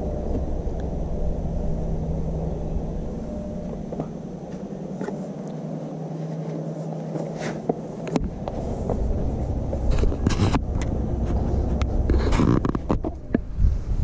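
Wind buffeting the microphone as a low rumble. It eases a few seconds in and gusts back suddenly about halfway through, with a few short knocks and scrapes.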